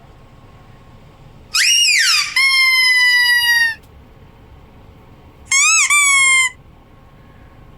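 Squeaky dog toy being squeezed and let go, giving two rounds of loud high-pitched squeaks. About a second and a half in, a short squeak rises and falls, then a longer one falls slowly. About five and a half seconds in, a second squeak does the same.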